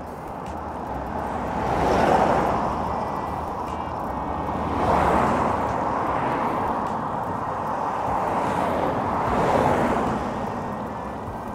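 Road traffic: three vehicles pass one after another, each rising and fading away, over steady road noise.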